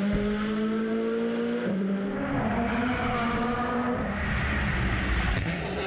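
Rally car engine running at high revs. The pitch dips briefly about a second and a half in, then climbs again.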